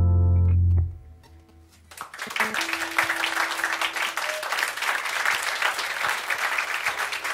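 The band's final held chord stops abruptly within the first second; after a short pause, the audience breaks into steady applause.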